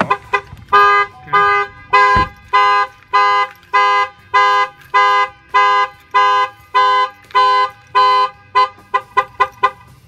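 Avital 3100 car alarm siren on a Chevrolet Silverado 2500 HD, set off by opening the armed truck's door with the key. It cycles its tones: rapid pulsing, then a steady beeping of a little under two beeps a second, then rapid pulsing again near the end.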